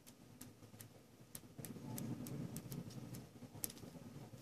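Pen writing on a paper sheet: faint, irregular ticks of the pen tip on the paper as the letters are written, with a light rub of the strokes in the middle.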